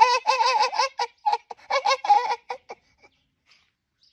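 High-pitched giggling laughter in quick wavering bursts that breaks into short choppy bursts and stops about three seconds in.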